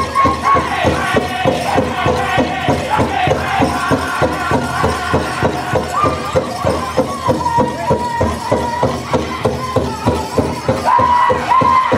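Powwow drum group playing a men's fancy dance song: a big drum struck in a fast, steady beat while the singers carry a high-pitched chant over it.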